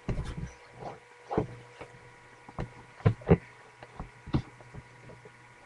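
Irregular knocks and thuds, about a dozen short hits at uneven intervals, over a faint steady hum.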